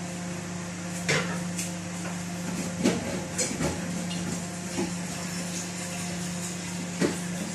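Kitchen background: a steady low hum with a few scattered light clicks and knocks, the sharpest about a second in and again near the end.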